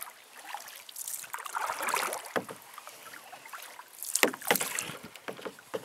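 Small-boat fishing sounds: a soft swish around two seconds in, then a few sharp clicks and knocks, the loudest just after four seconds, as gear is handled for casting.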